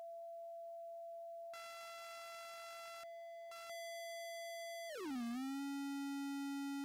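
Electronic tone generator playing a pure, steady sine tone at 674 Hz. About one and a half seconds in it turns buzzy and switches back and forth as the waveform type is changed, settling on a square wave. Near the end the tone slides down to about 280 Hz and holds.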